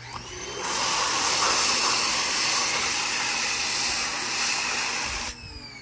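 Ryobi 1800 PSI electric pressure washer spraying through a foam cannon. Its motor whines up at the start, then the spray hisses loudly and steadily for about four and a half seconds. The spray cuts off suddenly near the end and the motor whine falls away.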